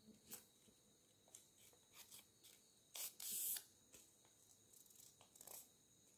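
Faint rustling and creasing of a sheet of paper folded by hand, in a few short bursts, the longest about three seconds in.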